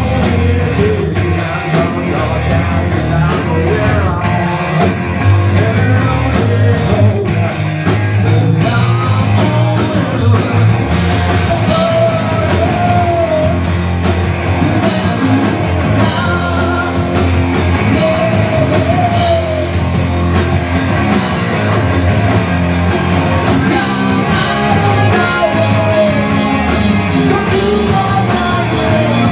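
Live rock band playing: distorted electric guitars, electric bass and a drum kit, with a harmonica played into the vocal mic at the start and a male singer later on.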